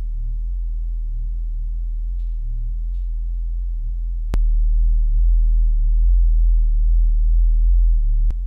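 A 31.5 Hz sine test tone played through a pair of Earthquake MiniME DSP P15 15-inch subwoofers, heard as a steady deep hum. About four seconds in there is a click and the level steps up, and near the end another click where it drops back, as playback switches between the two subwoofers together and a single one.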